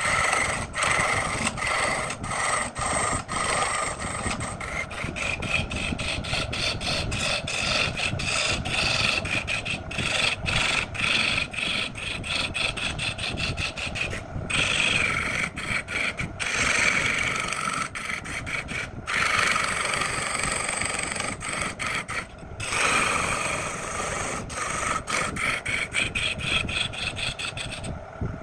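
A wood lathe spinning a long spindle while a hand chisel cuts into it. A rasping, whining cut that breaks off and bites again many times over.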